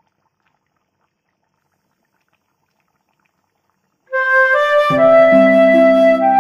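Silence for about four seconds, then instrumental background music starts suddenly: a sustained melody with lower chord tones joining almost a second later.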